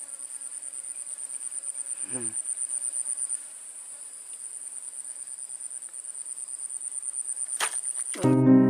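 Insect chorus: a high-pitched, rapidly pulsing shrill that swells, eases a little past three seconds in and builds again. Music comes in at the very end.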